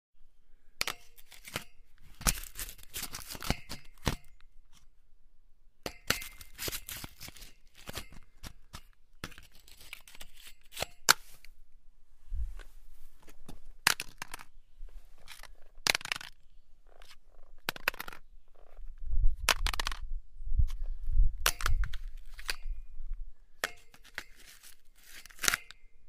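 Metal grating harshly against metal in a series of irregular scrapes, some a second or two long and some short, with short gaps between them and sharp clicks. In the second half, heavier low knocks come in among the scrapes.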